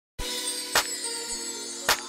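Electronic logo jingle: sustained synth notes that start abruptly, punctuated by two sharp hits about a second apart.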